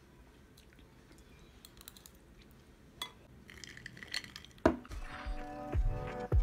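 Metal spoon clinking and scraping against a stone-coated frying pan, a few light clinks followed by a louder knock about two-thirds of the way in. Soft music comes in after the knock.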